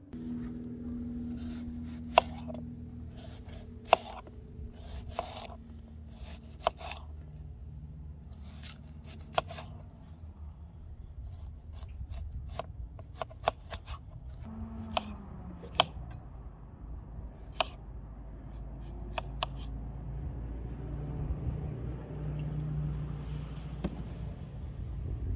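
Kitchen knife slicing an onion into rings on a plastic cutting board: a string of sharp, irregular knocks as the blade cuts through and hits the board, more frequent in the first half. A low steady hum runs underneath.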